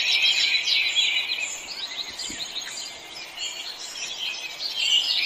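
A chorus of many small birds chirping and twittering, a dense overlapping layer of high, quick calls, softer in the middle and busier again near the end.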